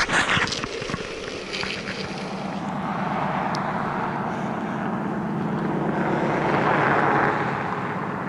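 Highway traffic noise: a passing vehicle's tyre and engine noise swells, peaks about seven seconds in and then eases off, over a steady low hum of traffic. Wind buffets the microphone in the first second.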